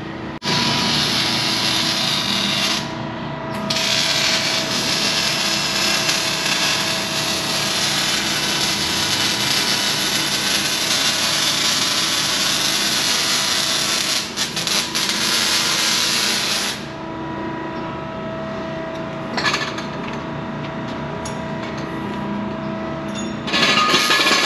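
A power tool running in long stretches, a harsh, steady hiss that breaks off for a moment about three seconds in, drops back about seventeen seconds in, and comes back loud near the end, over a steady hum of shop machinery.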